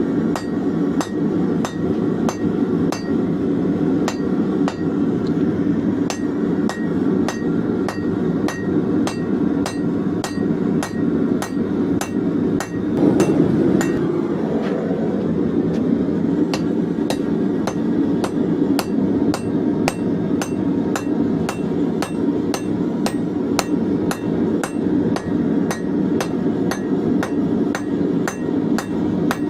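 Rounding hammer drawing out hot leaf-spring steel on an anvil: steady, even blows at about two a second, each with a faint metallic ring, over a constant low rumble. A brief louder rush of noise comes about halfway through.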